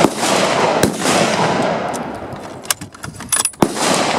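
Rifle shots on a firing line: sharp reports at the start, about a second in and near the end, with a long echoing rumble rolling between them. A few light clicks come just before the last shot.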